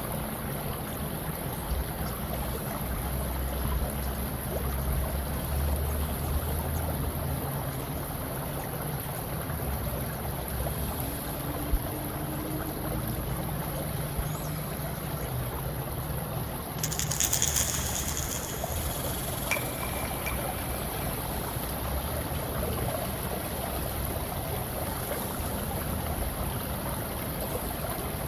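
Steady ambience of flowing water, an even wash of noise with no clear events, briefly brighter and hissier about seventeen seconds in.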